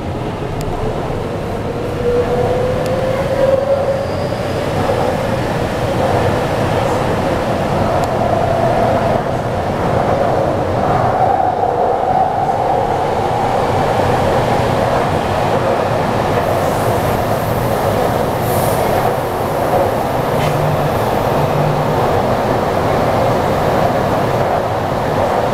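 Interior of a moving Taipei Metro C381 subway train with software-modified traction inverters, running in the tunnel: a steady rumble of wheels and tunnel noise. Over it the traction motors whine, rising in pitch over the first few seconds and then holding steady.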